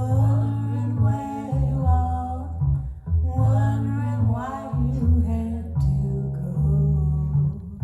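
Recorded music played through hi-fi loudspeakers: a singing voice over plucked double bass and guitar, the bass changing note about every half second.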